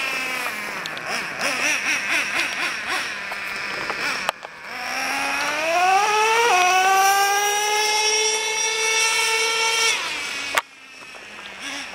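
Remote-control car running at high revs. Its pitch wavers up and down for the first few seconds, then rises steeply to a high steady whine that holds until it cuts off suddenly about ten seconds in.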